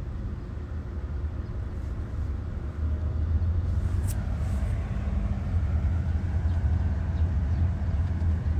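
Steady low rumble of a vehicle on the move, heard from inside its cabin, getting a little louder about three seconds in, with one brief click about four seconds in.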